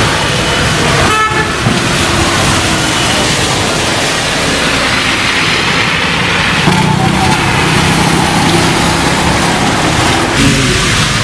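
Street traffic on rain-wet roads: a steady hiss of tyres and engines, with a vehicle horn tooting briefly about a second in and a longer, lower horn-like tone from about seven seconds in.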